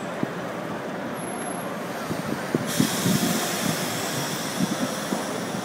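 Steady traffic noise of a busy city intersection, with yellow taxis and other cars passing and a few short louder sounds rising above it. A higher hiss joins in about two and a half seconds in.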